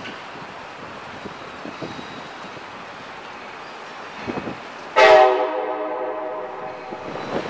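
A train horn sounds once, suddenly, about five seconds in: a loud chord held for around two seconds and fading, over a steady background hiss.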